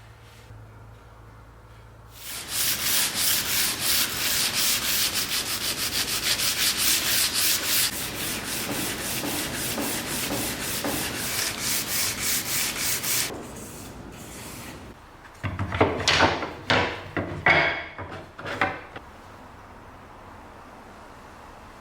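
Sandpaper rubbed back and forth by hand in quick, even strokes, about four or five a second, for some ten seconds. After a short pause come a few louder, irregular scrapes or knocks.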